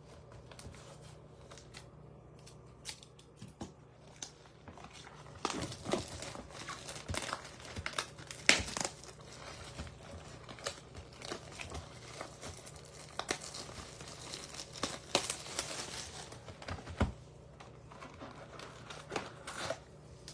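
Crinkling and tearing of wrapping as a trading-card hobby box is opened and its foil packs handled. A few scattered taps come first, then a busy stretch of crinkling in the middle, thinning out near the end.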